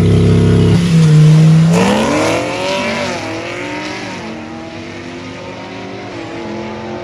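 Two cars drag racing: engines held at steady high revs on the starting line, then launching about two seconds in and accelerating down the strip through several upshifts, fading as they pull away.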